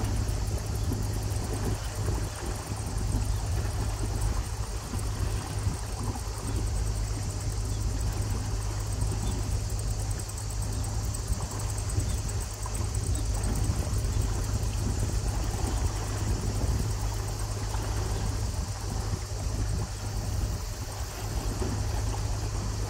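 A motor cruiser's engine running steadily at low canal-cruising speed: an even, low hum with a wash of noise above it.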